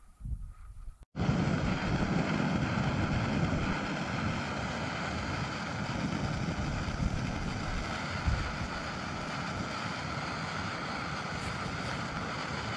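Backpacking gas canister stove burning under a small pot: a steady roaring hiss that starts abruptly about a second in.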